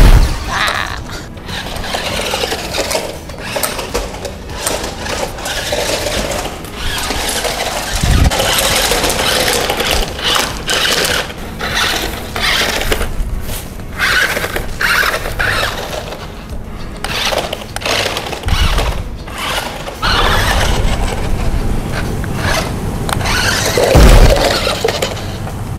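Small electric motor and gears of a Hot Wheels Supercharged Shark RC toy car whining in stop-start bursts as it drives over grass. A heavy thump comes right at the start, and another about 24 seconds in as the car knocks over a stack of plastic cups.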